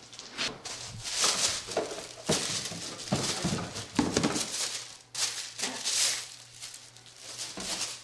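Cardboard doll boxes being handled and opened: a lid pulled off an inner box and paper and plastic packing rustling, in irregular bursts with a few sharp knocks.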